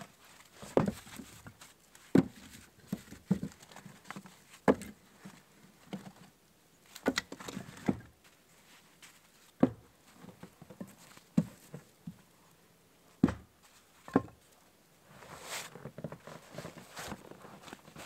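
Pieces of split firewood knocking against each other as they are picked up and stacked, about ten sharp wooden knocks a second or two apart. In the last few seconds they give way to a rustling of the tent's canvas door being handled.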